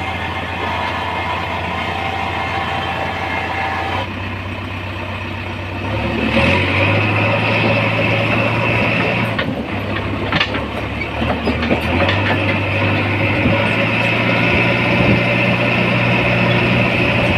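JCB 3DX backhoe loader's diesel engine running steadily, then going up in speed and louder about six seconds in. A few knocks and clanks come around ten seconds.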